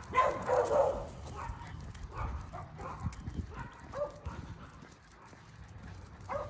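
A dog barking: one loud bark in the first second, then a few shorter, quieter sounds spread through the rest.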